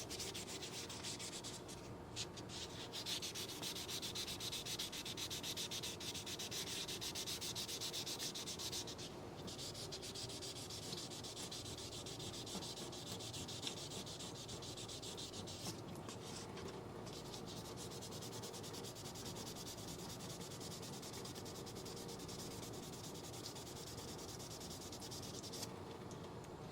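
Rapid back-and-forth hand sanding of a metal divot tool with fine 2000-grit wet/dry sandpaper, a steady scratchy rasp that stops briefly a few times. The paper is getting old and is cutting little.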